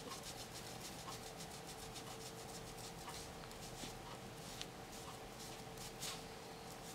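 Light, rapid rubbing by hand, about six or seven soft strokes a second for the first three seconds, then a few scattered light scrapes, over a faint steady hum.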